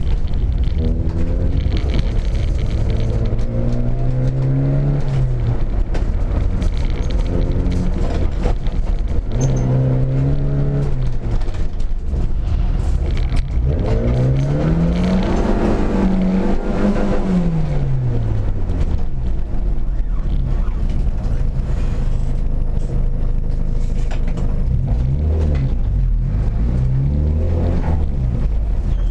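Škoda Felicia's engine heard from inside the cabin while the car is driven hard through a slalom course. The revs climb and drop again and again, with one long climb and fall in the middle and quicker swings near the end. A heavy low rumble of road and cabin noise runs underneath.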